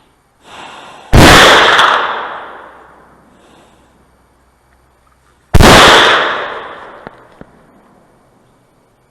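Two rifle shots about four seconds apart, each followed by a long echo that fades over about two seconds.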